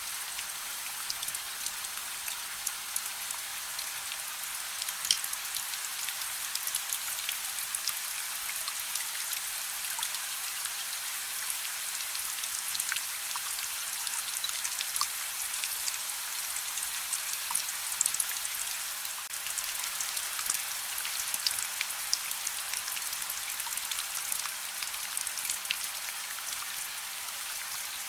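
Steady rain hiss with many small sharp ticks and pops scattered through it, mixed with the crackle of a fireplace.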